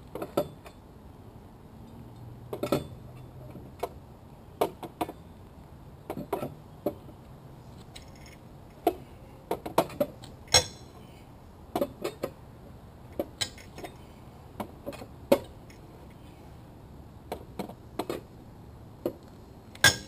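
Metal clicks and clinks of a long-handled lug wrench on the minivan's rear-wheel lug nuts as they are broken loose with the tyre on the ground, sharp irregular strikes about a second apart.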